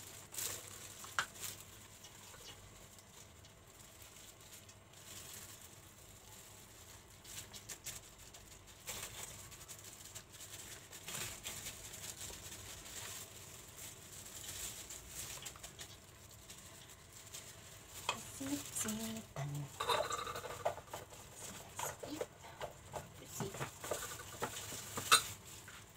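Plastic-gloved hands rubbing and patting a dry coating onto a whole steamed chicken on a foil-lined wire rack: faint soft rustles and light pats. The handling gets busier in the last third, with one sharp click near the end.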